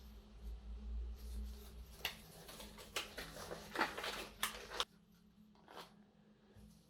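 Packaging being handled: irregular crinkling and rustling with a few sharp clicks, busiest around the middle. It stops about five seconds in, leaving only a couple of faint rustles.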